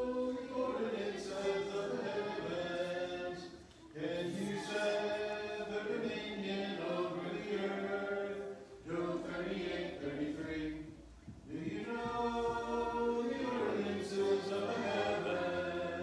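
A group of children's and adults' voices chanting in unison without accompaniment, a sing-song recitation in phrases of a few seconds with short breaks between them.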